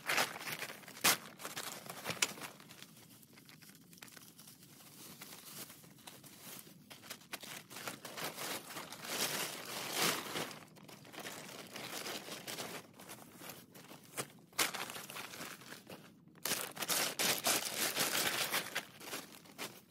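Tent nylon floor rustling under a hand, then a blue polyethylene tarp crinkling and crackling in irregular bursts as it is unfolded and spread out by hand, busiest near the end.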